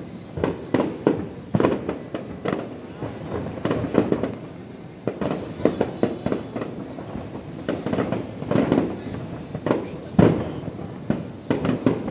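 Fireworks display: aerial shells bursting in a dense, irregular run of bangs, several a second at times, with no pause.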